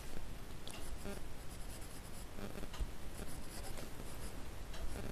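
Pen writing on paper: quiet, irregular scratching of handwritten strokes.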